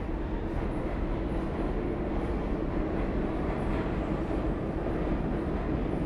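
New York City subway train running, a steady low rumble of wheels and motors on the rails.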